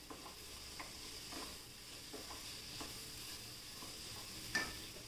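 A wooden spatula stirring a thick vegetable masala in a non-stick pan, making faint scrapes about every half second, with a louder one near the end, over a light, steady sizzle.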